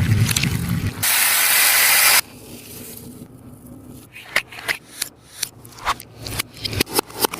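Sticky taba squishy being handled: rubbing and pressing, then a loud, steady hiss for about a second, followed by a run of short sticky clicks and crackles as the tacky surface is pressed and peeled.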